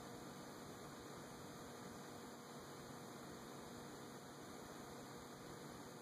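Faint steady hum with hiss: near-silent office room tone.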